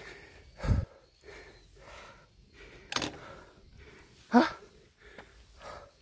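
A person breathing hard, with a loud voiced breath about four and a half seconds in, among a few scattered sharp clicks and knocks.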